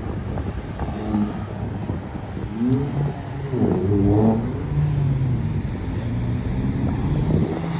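Cars driving past on the road with engines running; about three to four seconds in, one car accelerates with a rising engine note, the loudest moment.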